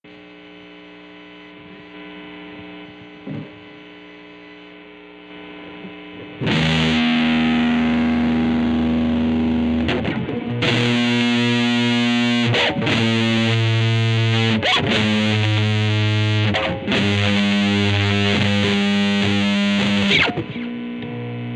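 Electric guitar, a 1994 Mexican-made Fender Stratocaster with GFS reverse-mounted pickups, played through distortion. A quiet held note rings for about six seconds, then loud distorted chords are struck and held, re-struck several times, before dropping back to a quieter sustained chord near the end.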